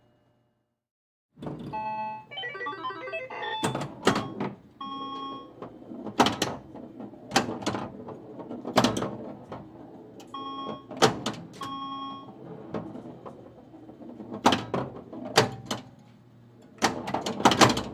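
An electronic device's mechanical clicks and clunks, mixed with several short electronic beeps and a quick run of tones about two seconds in.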